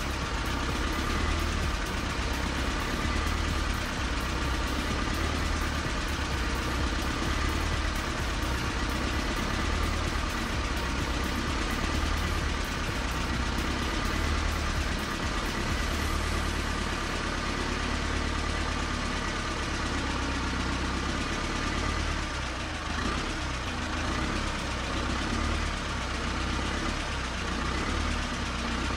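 Freshly overhauled VMZ T-28 tractor diesel engine, air-cooled, running on the bench at a steady idle.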